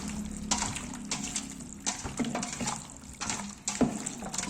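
Chicken pieces being mixed in a thick, oily spice marinade: irregular wet squelches and smacks, several a second.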